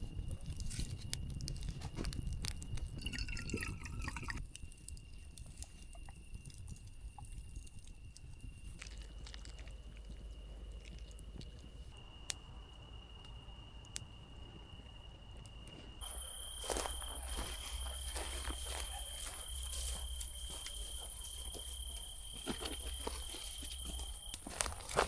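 Outdoor night ambience: a steady high insect trill, like crickets, runs throughout, with scattered small clicks and a low rumble underneath. The ambience changes abruptly a few times, and the trill shifts a little higher partway through.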